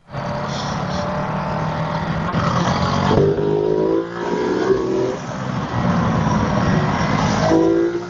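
Ducati Multistrada V4 S's V4 engine running under acceleration, its pitch rising twice as it revs up through the gears, with wind noise over it.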